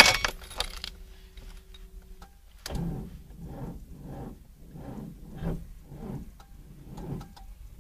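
A car's electric starter cranking a cold engine slowly at −22 °C, in a regular beat of somewhat less than two pulses a second, without the engine catching. A faint steady hum comes first, for about two seconds.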